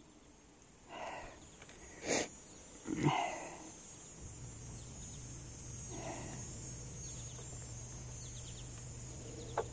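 A pump starts up about four seconds in and runs on as a steady low hum, over a constant high chirring of insects. A sharp click and a short knock come in the first few seconds.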